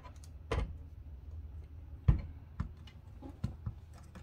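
Hard plastic clicking and knocking as a radio in a 3D-printed PLA cage is handled and turned: about five sharp knocks, the loudest about two seconds in.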